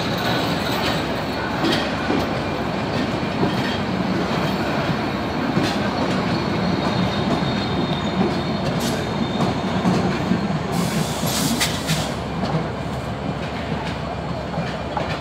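Passenger train coaches rolling past the platform: a steady rumble of wheels on the rails with scattered clicks from the rail joints, and a short high hiss about eleven seconds in.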